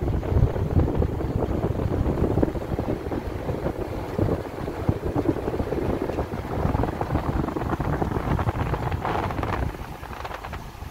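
Wind buffeting a microphone held out the window of a vehicle driving along a dirt road, over the rumble of the moving vehicle. The buffeting eases near the end.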